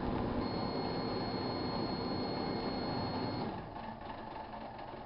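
GE Dual Wave microwave oven running with a steady hum and a thin high whine, shutting off about three and a half seconds in, after which only a quieter hum is left.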